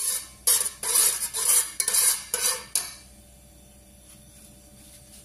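Metal spoon stirring thin coconut milk and water in a rice cooker's non-stick inner pot, scraping and clinking against the pot in about six quick strokes, then stopping about three seconds in.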